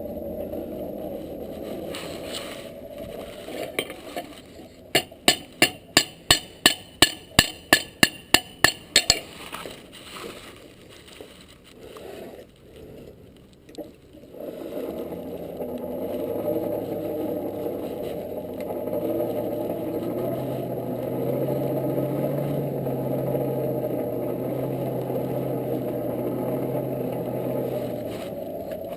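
Forge fire with its air blower running steadily, and about five seconds in a run of about a dozen ringing hammer blows on hot steel over the anvil, about three a second, as the forge weld is struck together. Past the middle the blower runs louder with a low hum.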